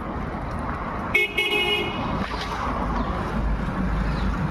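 A vehicle horn gives one short toot about a second in, over steady traffic noise.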